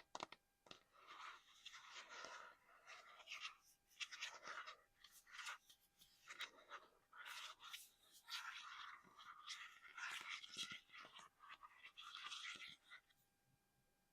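Close-miked scratching and tracing on small collectible items, irregular rasping strokes broken by a few sharp taps, stopping about a second before the end.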